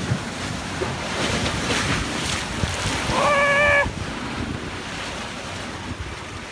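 Lake waves surging and splashing against the rocky shore beside a wooden jetty, with wind buffeting the microphone. A short high-pitched cry rings out for about half a second a little past the middle.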